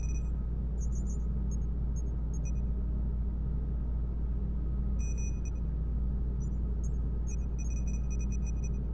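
Sci-fi space-dock control-room ambience: a steady deep rumble and hum, with scattered short high electronic beeps and blips that come in a cluster about five seconds in and as a quick run near the end.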